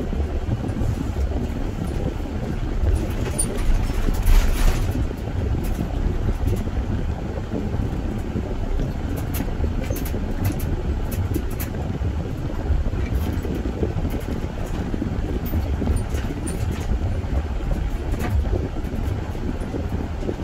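Car driving, heard from inside: a steady low rumble of road and engine noise, with a louder whoosh about four seconds in and a few faint ticks.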